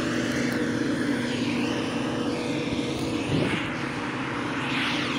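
Farm machinery engine running steadily in the field: a low, even hum under a rushing noise that sweeps up and down in pitch, with a brief low bump a little past the middle.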